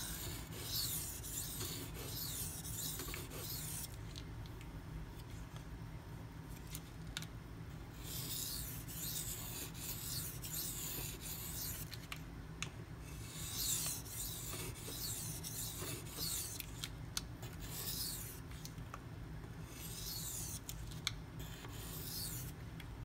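A 52100-steel knife blade stroked lightly across a coarse 320-grit Shapton Pro whetstone, in runs of quick scraping strokes with short pauses between them. The edge is being cleaned up after a burr has been raised.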